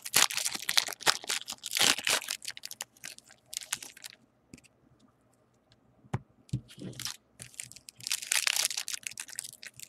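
Plastic wrapper of a baseball-card pack crinkling and tearing as the pack is opened and its cards handled. The crinkling stops for a couple of seconds about halfway through and starts again near the end.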